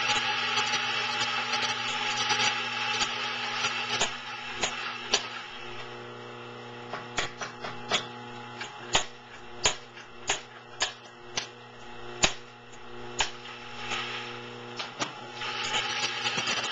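Home espresso setup: a steady motor buzz from the machine and grinder for about the first six seconds, then a run of sharp clacks and knocks as the portafilter and metal parts are handled, and the buzz starts again near the end.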